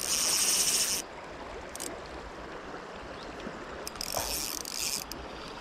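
Spinning reel's drag screaming as a big trout strips line against it, in two runs: one for about the first second and another about four seconds in. A river flows steadily underneath.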